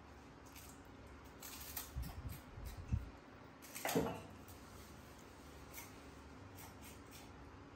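A baby macaque biting and crunching a crispy puffed cracker: a few short crisp crackles, the loudest about four seconds in, with some dull thumps just before it.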